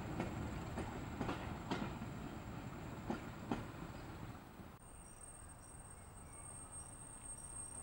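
Passenger coaches rolling past, their wheels knocking irregularly over the rail joints. About five seconds in the sound drops abruptly to a quiet hiss with a faint high steady whine.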